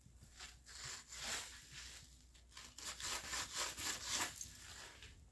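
A toddler's hands rubbing and sweeping across a woven tatami mat, scraping scattered fish-food pellets, in a series of short scratchy strokes that come quicker from about the middle on.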